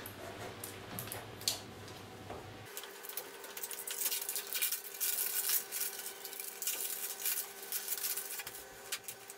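Packaging being handled while someone works at opening the box: scratchy rustling and crinkling with scattered small clicks, thicker from about three seconds in.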